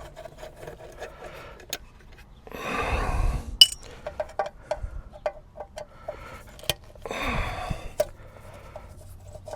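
Small clicks and taps of a screwdriver and loose screws working on plastic dashboard trim, with two heavy exhales about three and seven seconds in and a sharp click just after the first.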